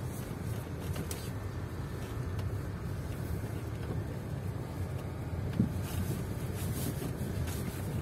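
Car cabin noise while driving on an unpaved, potholed dirt road: a steady low engine and tyre rumble, with a few light knocks and one thump about five and a half seconds in.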